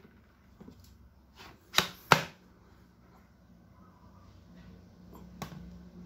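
A 20 V battery pack being pushed onto an Ingco CVLI2001 cordless vacuum's battery mount, giving two sharp plastic clicks about a third of a second apart as it latches, then a fainter click near the end.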